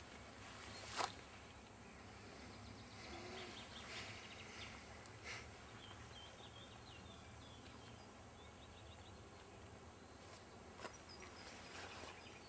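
Quiet outdoor background with faint, short bird chirps in the second half and a few soft clicks, the sharpest about a second in.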